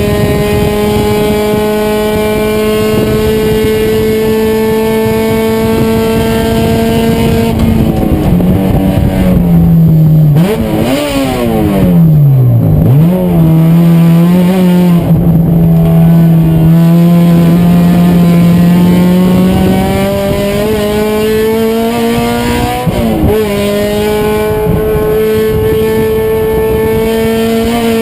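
A Honda race car's engine under way on track. It pulls with its pitch slowly rising, then about eight seconds in it drops sharply through several quick rev blips as the car brakes and downshifts. It holds a steady lower note, then climbs again, with a short break in pitch near the end as it shifts and keeps accelerating.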